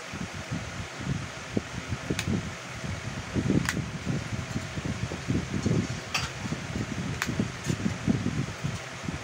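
Steady whirring background noise with a gusty low rumble. About five sharp clicks come from a handheld wireless microphone's body being handled and twisted.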